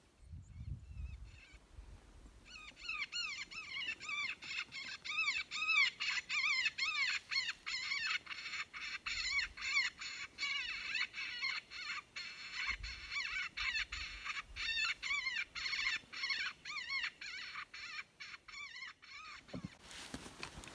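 Electronic predator call playing a recorded animal distress sound: a rapid run of high, rising-and-falling squeals, several a second. The squeals start a couple of seconds in and stop shortly before the end.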